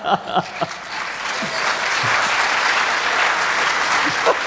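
Congregation applauding steadily, with laughter in the first moment.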